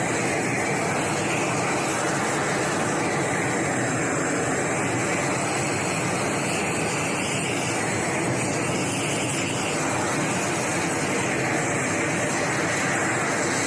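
Blowtorch flame burning steadily, heating a seized padlock to try to free its mechanism.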